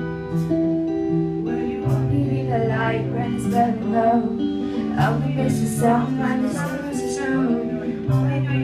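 A small live band playing a song: electric guitars over a bass line and drum kit, with cymbal hits. A woman's voice starts singing into the microphone about two seconds in.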